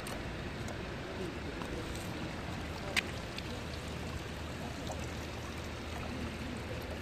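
Steady harbour water lapping and trickling, with one sharp click about three seconds in.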